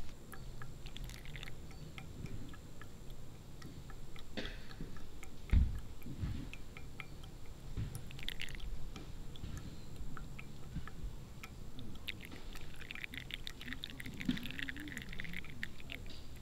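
Pour-over coffee draining through a paper filter in a stainless dripper into a metal pot: faint fine crackling and dripping, thickest in the last few seconds. One dull thump about five and a half seconds in.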